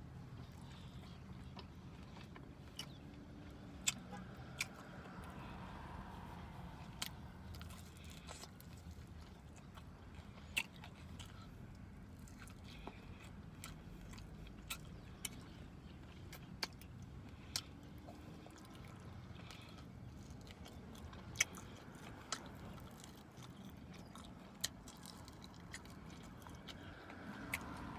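Close-up mouth sounds of someone eating chicken wings: chewing and biting, with sharp wet clicks and smacks every second or two. A steady low hum of the car interior runs underneath.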